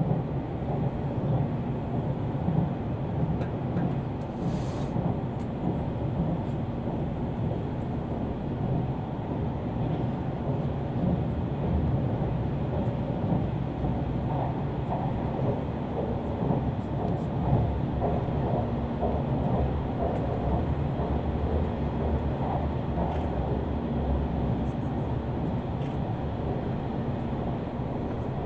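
Passenger train running at speed, heard from inside the carriage: a steady rumble of wheels on rail with a faint constant hum.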